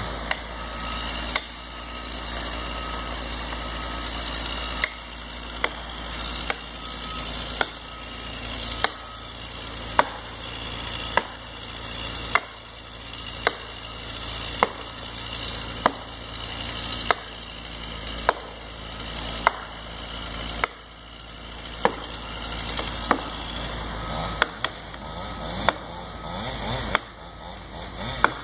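Heavy hand-tool blows on wood at the foot of a tree being logged: a sharp crack about every second, with one longer pause near the start. A steady engine hum runs underneath.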